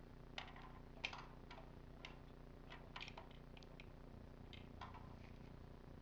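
Faint, scattered small metallic clicks and ticks as the yoke screw of a vintage double hose regulator is turned tight, clamping the regulator and banjo fitting onto the tank valve, over a low steady hum.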